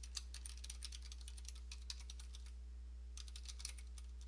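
Typing on a computer keyboard: quick runs of key clicks with a brief pause a little past halfway, over a steady low hum.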